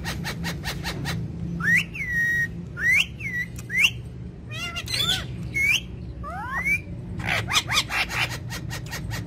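Pet parrot whistling a string of short notes that rise and fall, broken by rapid runs of clicks near the start and again about seven seconds in, over a steady low hum.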